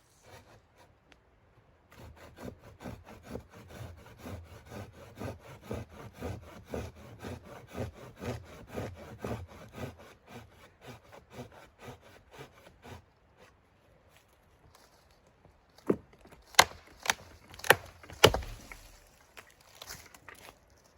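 Wood being sawn by hand with steady back-and-forth strokes, about two a second, for roughly ten seconds. Then, after a short pause, five sharp wooden knocks come in quick succession.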